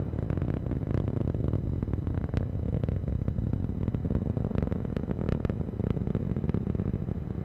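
Atlas V rocket in ascent, its RD-180 engine and two solid rocket boosters giving a steady low rumbling roar with irregular crackles, near maximum dynamic pressure.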